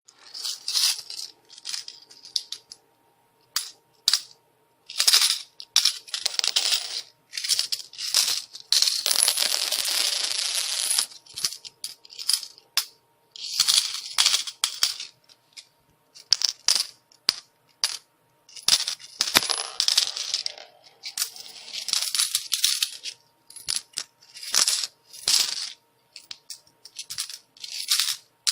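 Coins falling and clinking against each other in a string of jingling spills, each a fraction of a second to a few seconds long, with short pauses between them.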